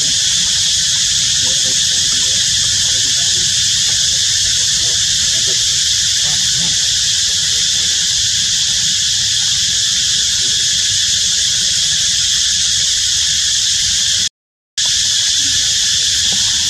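Loud, steady high-pitched drone of insects, with faint squeals of baby monkeys beneath it; the sound cuts out for half a second about fourteen seconds in.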